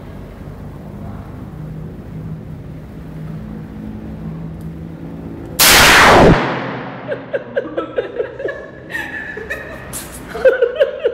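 A single .44 Magnum revolver shot about halfway through, loud enough to overload the recording, ringing off the range walls as it dies away. Laughter follows in quick bursts.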